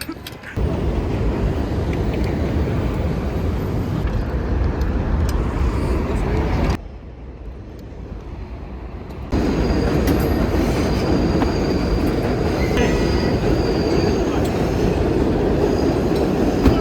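Steady low rumble of a moving vehicle heard from inside while riding. About seven seconds in it drops abruptly to a quieter stretch for roughly two and a half seconds, then the loud rumble returns.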